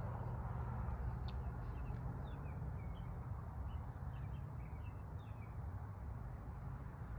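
Small birds chirping, a quick series of short high calls from about a second in until past the middle, over a steady low rumble.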